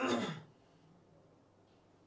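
A man's short, breathy vocal exhale at the very start, lasting about half a second and dropping in pitch as it fades. Then quiet room tone.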